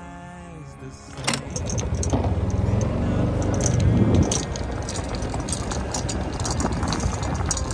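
Golf cart driving over grass: a low running rumble, loudest near the middle, with its body and loose gear rattling and jingling throughout. It begins with a sharp knock about a second in.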